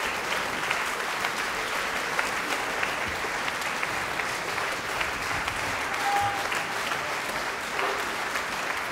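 Large audience in a concert hall applauding steadily: dense, even clapping.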